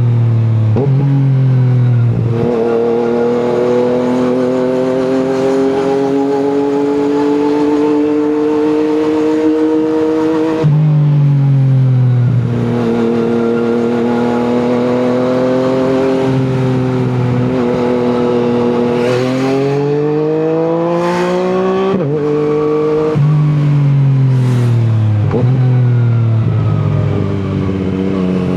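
Yamaha MT-09's inline three-cylinder engine through an Akrapovic exhaust, running under way: its pitch holds steady for long stretches, climbs under acceleration, and jumps or drops suddenly several times as gears change.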